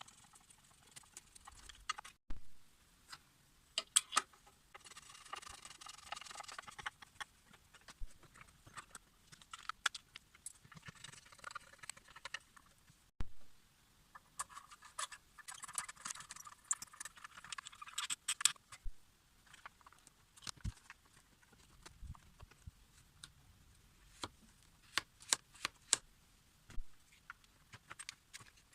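Tools and small parts being handled during repair work: scattered sharp clicks and knocks, with two spells of scraping or rattling a few seconds long.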